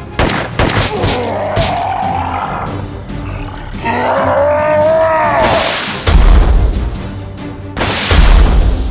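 Dramatic action-movie music, with a drawn-out vocal cry that rises then falls in pitch about four seconds in. Two heavy booms land about six and eight seconds in, the loudest sounds.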